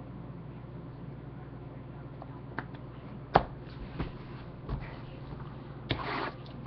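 Trading cards and a sealed foil pack being handled on a desk: a few light clicks and taps, then a short rustle near the end.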